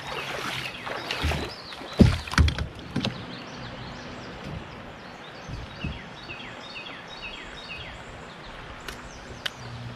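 A few hard knocks against a kayak about two to three seconds in, while a smallmouth bass is being landed; later a bird sings a run of quick falling chirps.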